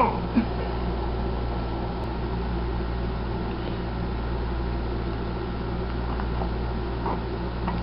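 A steady low hum, like an appliance or fan running.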